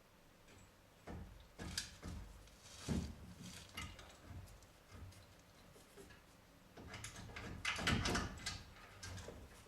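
Clicks and knocks of hand tools and metal parts being handled during an alternator refit, in two spells of irregular clatter: one starting about a second in, the other after about seven seconds.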